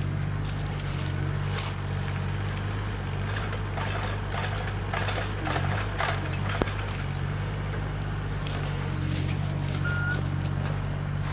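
Electric saw motor running with a steady low hum, with scattered snaps and clicks of wood and branches.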